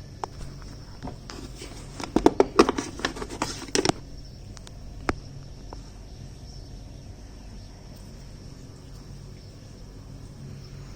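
A quick run of sharp clicks and rattles for about two seconds, starting about two seconds in, then a single click, as parts of the washing machine are handled; a steady low hum underneath.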